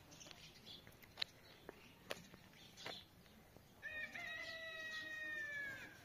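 A single drawn-out animal call, about two seconds long, starting a little past the middle, holding a near-steady pitch and dropping away at its end. A few sharp clicks come before it.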